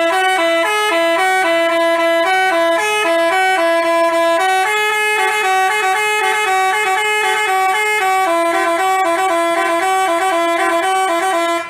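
Telolet basuri musical bus horn playing a tune: a run of short and held notes, two pitches sounding together, starting and cutting off abruptly.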